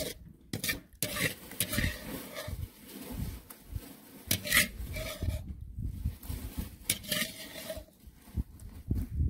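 A metal skimmer scraping against a frying pan as onions, potatoes and tomatoes are stirred, in irregular strokes.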